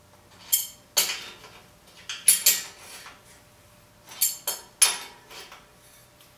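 Metal hardware clinking at the axle end of a geared front hub motor as it is fitted by hand: a string of sharp metallic clicks in irregular clusters.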